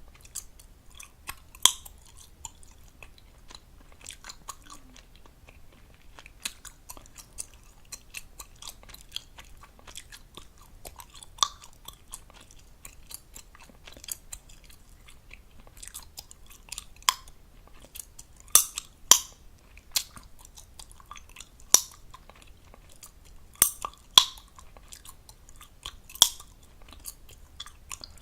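Chewing gum close up to the microphone: steady soft wet smacking, broken every few seconds by sharp gum pops, several of them in quick pairs.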